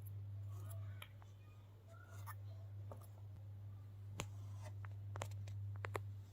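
Kinetic sand being worked: faint scratchy, crumbling sounds with scattered small crackles and clicks, over a steady low hum.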